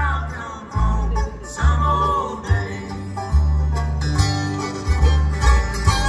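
Bluegrass band playing live: upright bass notes under banjo and guitar, with a sliding lead line above.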